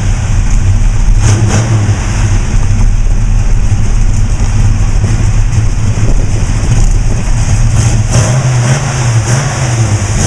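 A 1965 Ford Mustang's 289 V8, built with 351 Windsor heads, a Holley 600 carburettor and a mild cam, idling loudly through its exhaust, with the revs rising a little about eight seconds in.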